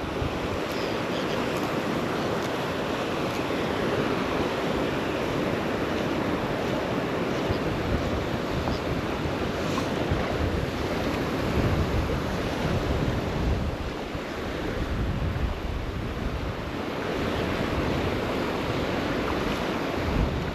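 Surf washing steadily on a beach, with wind buffeting the microphone in uneven low gusts.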